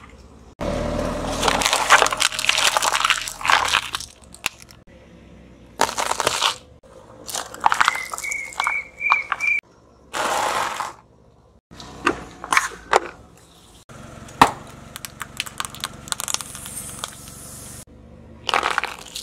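A string of separate crushing sounds as a car tyre rolls over one object after another, including an aerosol deodorant can, a pile of meringue cookies and cucumbers. Each is heard as cracks, crunches and crackles, with short pauses in between. A short run of squeaky notes comes about eight seconds in.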